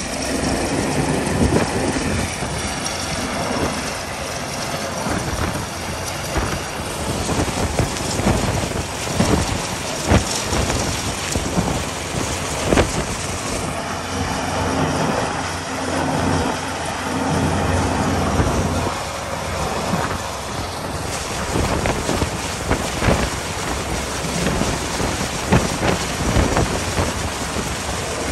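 Force 9 gale wind buffeting the microphone in loud, uneven gusts, with a helicopter's rotor and engine running under it.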